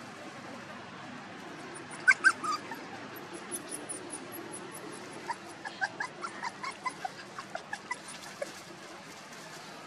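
Puppies whimpering in short, sharp, high squeaks: two loud ones about two seconds in, then a quicker run of about a dozen from the middle to near the end.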